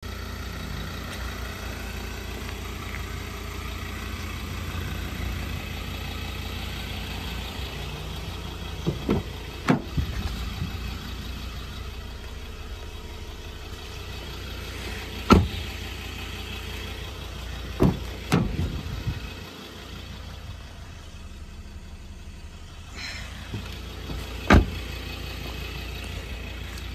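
Ford Ranger 3.2 TDCi five-cylinder diesel idling with a steady low running sound, a little quieter after about two-thirds of the way. About six sharp knocks stand out over it, the loudest about halfway through.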